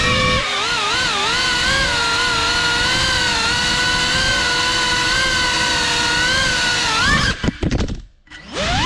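GEPRC Cinelog 35 cinewhoop FPV drone's brushless motors and ducted props whining, the pitch wavering up and down with throttle. About seven seconds in, the whine breaks up with a few clattering knocks and cuts out briefly as the drone crashes, then the motors spin back up with a rising whine near the end.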